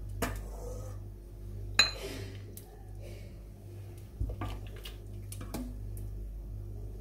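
A utensil clinking against a ceramic serving bowl a few scattered times, the loudest strike about two seconds in with a brief ring, over a steady low hum.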